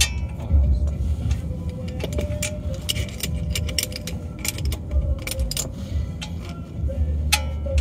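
Metal tools and parts clinking against each other in an irregular string of sharp metallic clicks and clatter, with a steady low rumble underneath.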